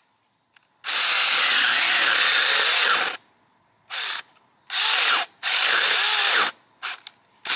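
Battery-powered Saker 4-inch mini chainsaw cutting a 3-inch honeysuckle branch. It runs for about two seconds, then in several shorter bursts as the trigger is released and pulled again.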